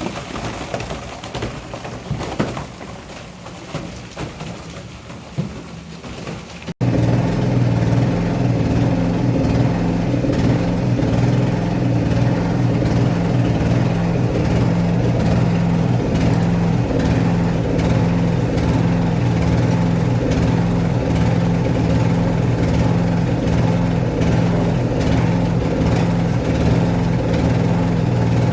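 Electric silo unloader running with a loud, steady hum. For the first seven seconds there is scattered knocking and clatter, then the steady machine hum takes over abruptly.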